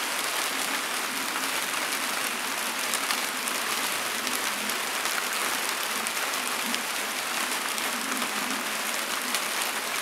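Steady rain: an even hiss with scattered ticks of individual drops.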